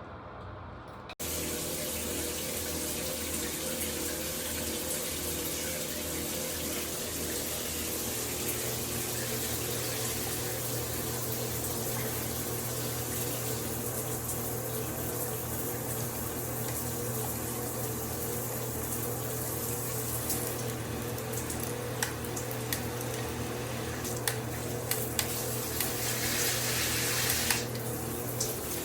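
Water comes on suddenly about a second in, and a shower head sprays steadily. Near the end come a few short clicks and a brief louder stretch of spray.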